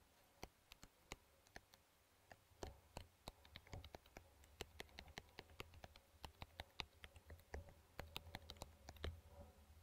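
Faint, irregular clicks and taps from hands working a Microsoft Surface Pro 7's keyboard cover and touchpad. A few separate clicks at first, then a denser run from about two and a half seconds in.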